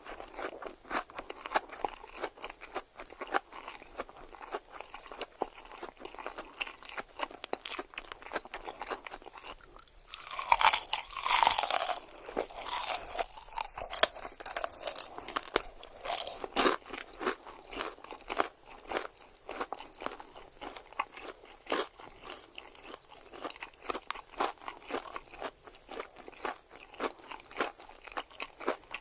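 Close-miked eating: steady crunching and chewing of crisp food, many sharp crackles in quick succession, with a louder bout of crunching about ten seconds in.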